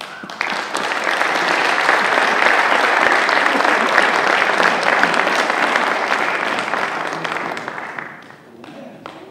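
Audience applauding, setting in just after the start, holding steady and dying away about eight seconds in.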